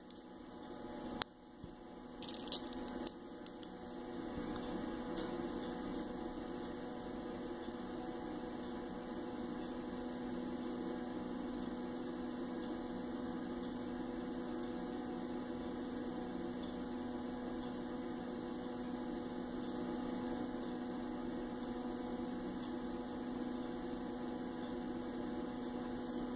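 A few light clicks in the first three seconds, then a steady electrical hum that starts about four seconds in and holds at one pitch.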